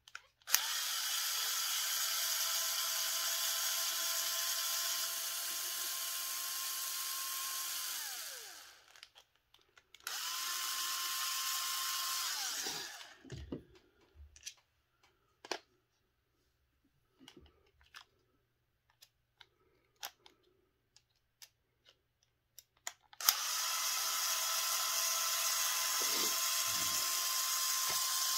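Cordless power driver backing out the small screws of a Traxxas Drag Slash transmission case. It runs in bursts: a long run of about eight seconds, a shorter one of about three, then another starting about two thirds in. The first two runs wind down with falling pitch. Between the runs come light clicks of screws and small parts being handled.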